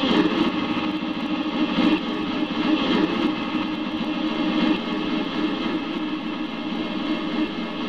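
A Yamaha PSR-E233 keyboard sound effect layered on itself a huge number of times, merging into a thick, steady wash of sound with no single note standing out. It eases slightly in loudness toward the end.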